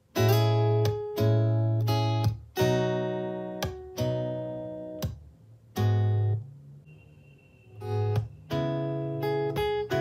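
R&B/pop guitar beat of plucked acoustic guitar over heavy bass, played through a Bose SoundLink Flex portable Bluetooth speaker and heard in the room. It starts abruptly after a short silence.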